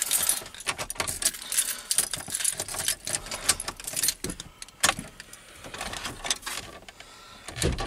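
Keys jingling on the ignition key ring, with irregular small clicks as the column gear shift lever is moved.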